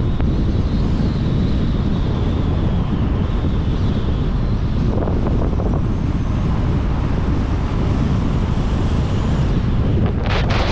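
Wind buffeting the microphone of a camera on a moving car, a steady low rumble mixed with the car's road noise, with a few harsher crackles near the end.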